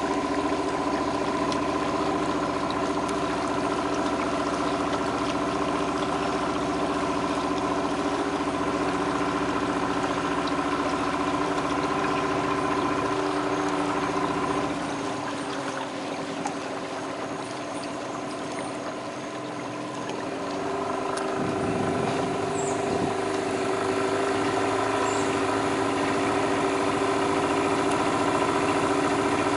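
Outboard motor pushing a small boat along, running steadily. It goes quieter for several seconds about halfway through, then picks back up.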